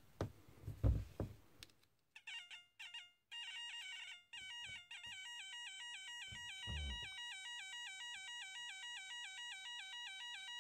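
Small speaker on a 555-timer soldering practice kit beeping electronically in a rapid, evenly repeating pattern as a 9V battery is held to its snap. The beeping stutters at first while the battery contact is made, then runs steady. There are a few handling knocks in the first two seconds and one low knock midway.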